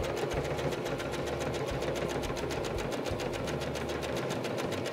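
Electric domestic sewing machine stitching a straight seam at a steady speed, a fast, even run of needle strokes.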